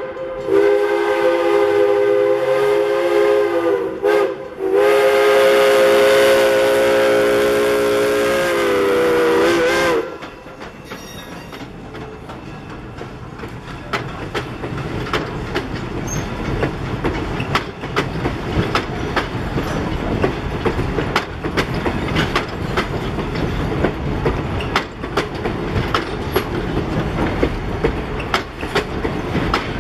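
The whistle of CNJ 113, an Alco 0-6-0 steam locomotive, sounds a chord of several notes in two long blasts, broken briefly about four seconds in, and its pitch sags as it shuts off about ten seconds in. After that the train rolls by, its wheels clacking over the rail joints over a steady rumble.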